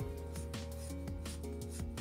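Background music with held notes that change every half second or so over a steady low bass.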